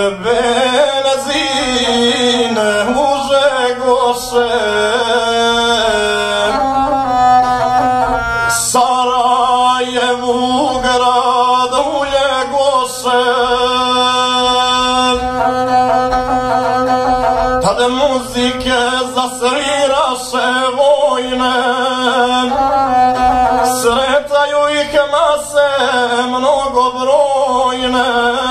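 Gusle, the single-string bowed folk fiddle, playing a wavering, heavily ornamented melody without a break: the instrumental prelude to a sung epic.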